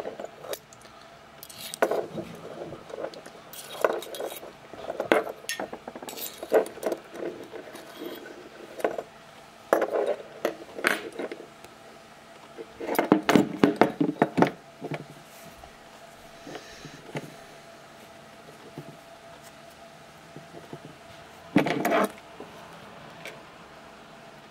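Metal tweezers scraping and clinking inside the brass body of a handmade gasoline lighter, with scattered clicks and knocks of brass parts being handled. The longest and loudest clatter comes just past halfway through, with one more short burst near the end.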